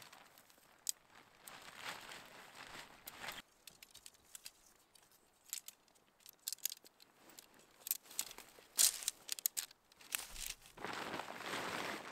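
Painted tent fabric rustling and crinkling as the tent hide is collapsed and packed away. Crackling dry reeds and a run of sharp clicks and snaps come in the middle, and louder rustling returns near the end.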